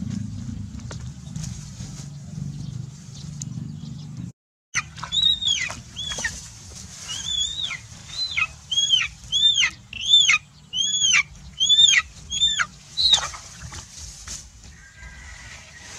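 A chicken's distress calls: a run of about a dozen sharp squawks, each rising and then falling in pitch, about two a second. Before them a low steady rumble runs for a few seconds and stops abruptly.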